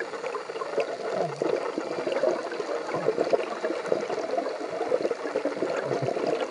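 Exhaled bubbles from a scuba diver's regulator, gurgling steadily, heard underwater, with faint scattered clicks throughout.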